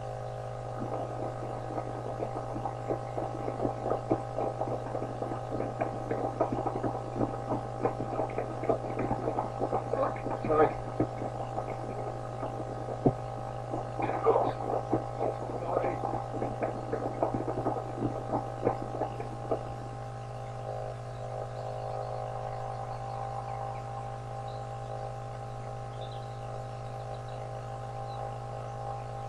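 Steady low electrical mains hum, with scattered faint clicks and rustles over roughly the first twenty seconds, after which the hum runs on alone.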